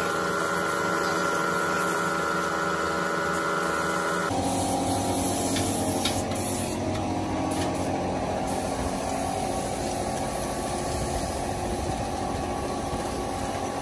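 Air spray gun hissing as paint is sprayed, over a steady mechanical hum. About four seconds in, the sound cuts abruptly to a different steady mechanical noise.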